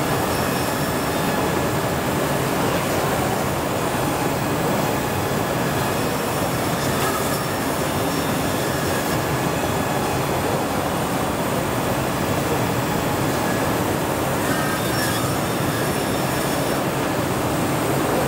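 Steady, unbroken mechanical noise of woodworking machinery running in a large exhibition hall, with no separate cuts, starts or stops.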